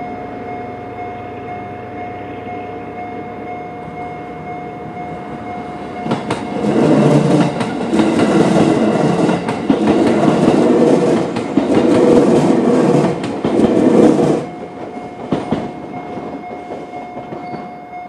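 JR standard electronic level-crossing warning bell ringing steadily with a long ring-out, one of its two sounders missing its low-pitched part. A JR 211 series electric train passes over the crossing for about eight seconds, its wheels clattering rhythmically over the rail joints and drowning out the bell. The bell stops right at the end.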